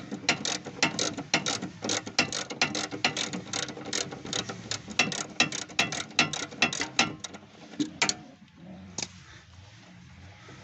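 Ratchet socket wrench clicking in quick strokes, several clicks a second, as a stabilizer link nut is undone while an open-end wrench holds the stud. The clicking stops about seven and a half seconds in, and a couple of single clicks follow.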